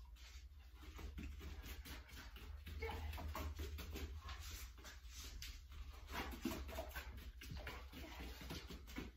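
A dog's paws pattering and scuffing on rubber foam floor mats as it runs out around a jump and back, a scatter of soft irregular footfalls over a low steady hum.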